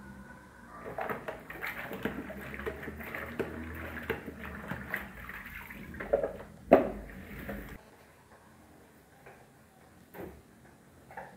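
Wet spin mop worked over a tiled floor: water swishing and scrubbing with small knocks of the mop, the loudest knock about two-thirds through. After that it drops to a low background with a few faint taps.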